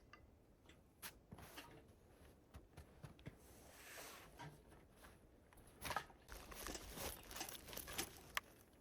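Faint, irregular rustling with light clicks and knocks in a small, enclosed space, growing busier near the end, like things being handled or shuffled.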